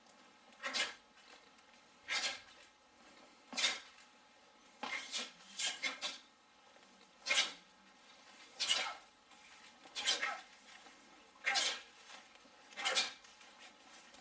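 A group performing an ITF taekwon-do pattern in unison: a short, sharp hissing burst with each move, about one every second and a half, with a quick run of several around five to six seconds in. The bursts come from the sharp exhalations and uniform snaps that mark each technique.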